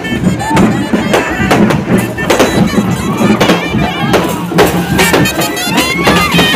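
Street band playing loud festival music: barrel drums beaten with sticks in a steady rhythm, with trumpets and other wind instruments playing a sustained melody over them.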